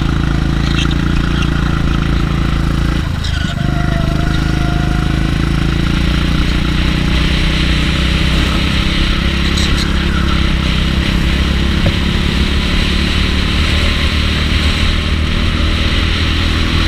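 Go-kart engine of a RiMO kart running at speed, heard close up from on board, with a brief dip in the engine note about three seconds in before it runs steady again.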